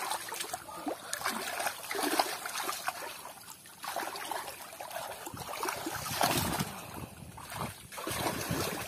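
Hands sloshing and splashing through shallow muddy water as they dig in the mud for catfish, in irregular bursts.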